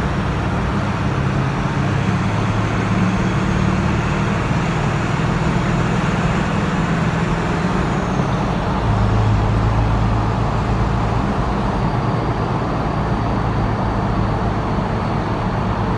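Truck driving on the road, heard from inside the cab: a steady low engine hum under road and tyre noise.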